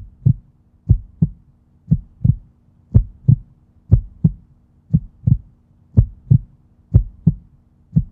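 Outro sound effect: a heartbeat-like double thump repeating about once a second over a faint low steady drone.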